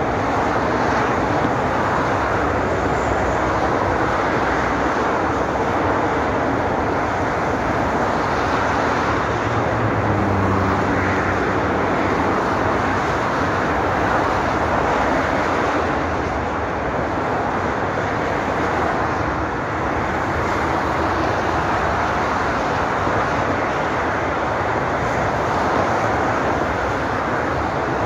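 Continuous motorway traffic: cars passing at speed on both carriageways, their tyre noise merging into a steady wash. A single vehicle's engine drone stands out briefly about ten seconds in.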